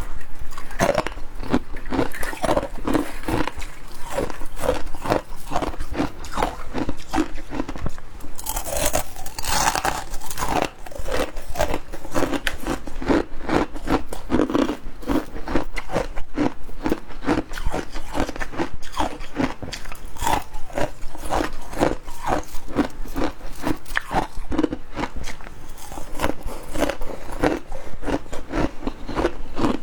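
Close-up crunching and chewing of hard freezer ice (humidifier icicles): a continuous run of bites and crunches, several a second, with a louder, crisper bite about nine seconds in.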